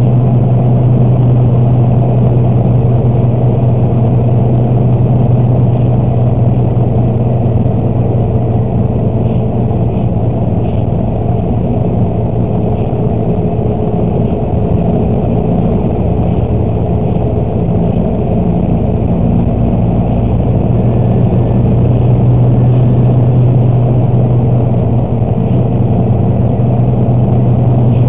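Steady engine and road drone inside a moving vehicle's cabin, picked up by a dashcam, with a constant low hum under it.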